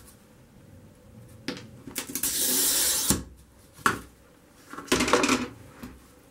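A glass cutter scoring semi-opaque sheet glass in one stroke, a steady high hiss lasting about a second. It is followed by a sharp click and then a short crackling snap as the scored glass is run and broken with running pliers.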